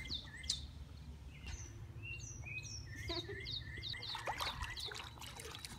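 Songbirds chirping: many short, high, falling chirps and brief whistled notes in quick succession, over a low steady rumble.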